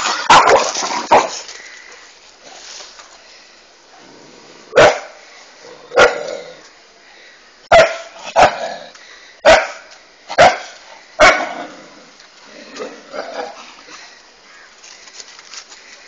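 A dog barking: a quick run of barks in the first second, then seven single sharp barks spaced about a second apart, and softer barks a little after them.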